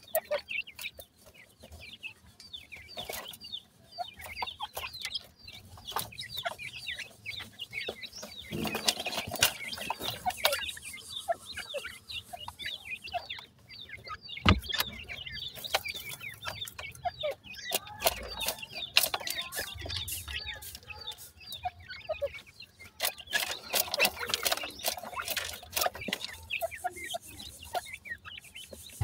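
A group of young francolins making many short, high chirping calls while they peck and scratch in dry soil, with frequent sharp clicks and taps.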